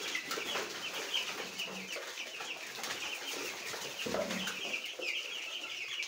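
A flock of young chicks peeping continuously: many short, high, falling peeps overlapping one another.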